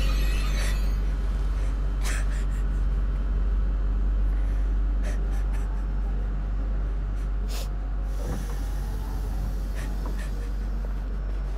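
Film soundtrack ambience: a deep, steady low rumbling drone with faint sustained tones above it, broken by a few sharp clicks, the loudest about seven and a half seconds in.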